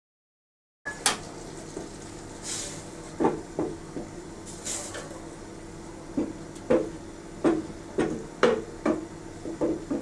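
A wooden spoon stirring rice and vermicelli in water in a stainless steel pan, knocking against the pan about a dozen times from about three seconds in, over a steady low hiss as the water comes up to the boil.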